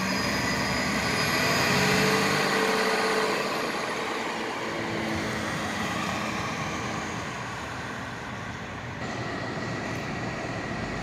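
Articulated city bus driving off, its engine and drivetrain loudest about two seconds in and then fading as it moves away.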